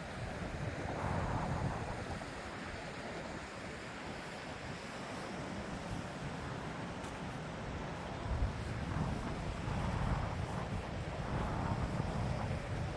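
Wind gusting over the microphone, a steady rushing noise that swells about a second in and again over the last few seconds.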